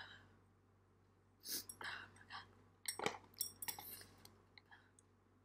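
Close-miked eating sounds: mouth noises while eating spicy instant noodles, with sharp clicks about three seconds in as chopsticks work in the paper noodle cup.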